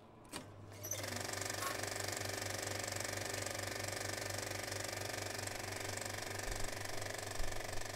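A click, then about a second in a small machine starts up and runs steadily with a fast, even rattle over a low hum.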